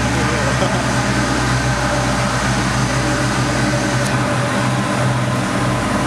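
Heavy truck engine running with a steady, deep drone; its lowest rumble drops away about four seconds in.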